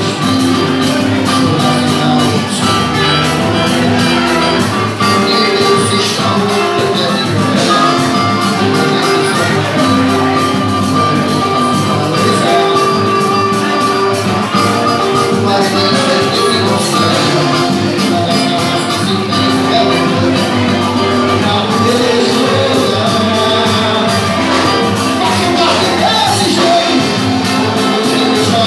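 Live band music with a steady, busy percussion beat under sustained melodic instruments.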